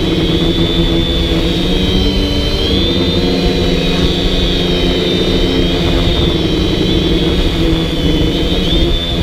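DJI Flame Wheel F450 quadcopter's four electric motors and propellers whining in flight, heard from the camera on board. The high whine wavers up and down as the motors change speed, over a steady low rumble.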